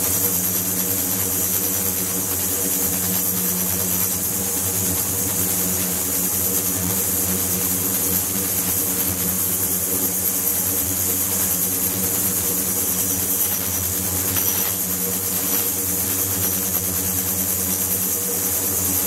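Ultrasonic tank with its transducers driving the water: a steady low hum with several overtones and a steady high hiss.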